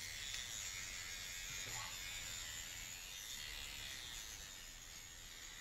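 Small high-speed rotary cutting tool with a blade grinding through a steel handcuff, a steady high whine that eases slightly toward the end.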